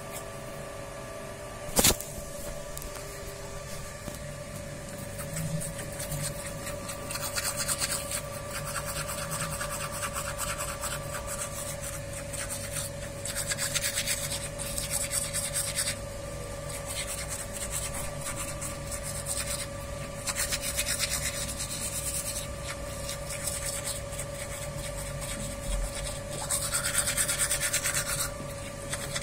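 Manual toothbrush scrubbing teeth in brisk back-and-forth strokes, coming in spells of a few seconds with short pauses between. A single sharp click about two seconds in.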